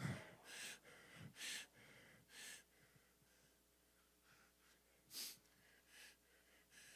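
A man's breaths picked up by a close handheld microphone: a few faint, short breaths about a second apart, then a louder one about five seconds in. Otherwise near silence.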